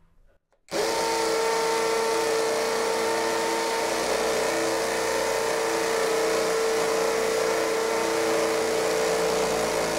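Ingco 20V cordless hammer drill boring into a concrete brick with a masonry bit, starting about a second in and then running steadily at full speed on a fully charged battery.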